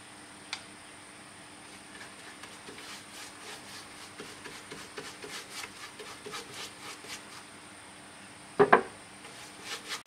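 Wood being handled and worked by hand: a run of light, irregular taps and scrapes, then a loud double knock near the end.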